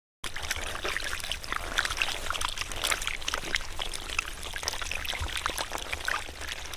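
Many catfish thrashing in a shallow trickle of muddy water, a dense, irregular run of small wet splashes and slaps.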